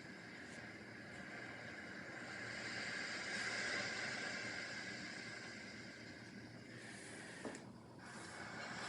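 Paintbrush stroking and scrubbing on watercolor paper, a faint scratchy hiss that swells about three seconds in, with a light tap near the end.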